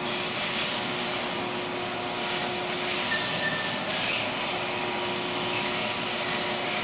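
Vacuum cleaner running steadily, with a continuous rushing noise and a faint steady whine, used to clean dust out of electrical switchgear cubicles.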